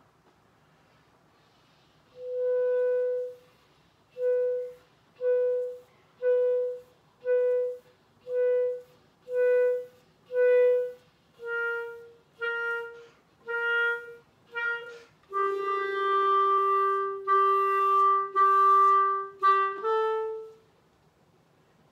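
Solo clarinet playing unaccompanied, starting about two seconds in with a held note, then a run of short detached notes on one pitch at about one a second. The pitch steps down slightly, then settles into a longer, lower sustained note, and the passage ends on one short higher note.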